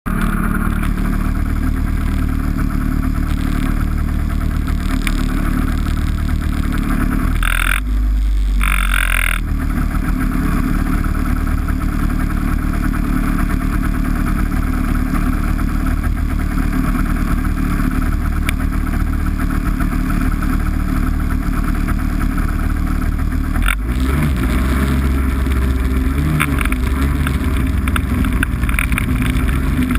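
A vehicle engine running steadily, with a brief change in the sound about eight seconds in and a sharp click shortly before the end.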